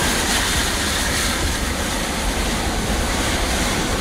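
Airbus A330 MRTT's twin jet engines running at taxi power as the aircraft rolls along the taxiway, a steady, even noise.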